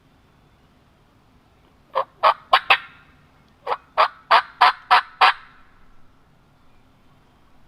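Turkey yelps: a run of four short, sharp notes, then a run of six, about three a second and loud.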